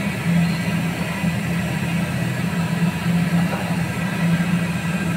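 Steady low hum of a running machine that swells slightly every second or so, over a constant background hiss.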